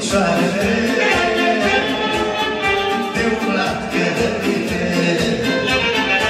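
A live band playing a fast Romanian folk dance tune for a ring dance, with a melody line over a steady beat.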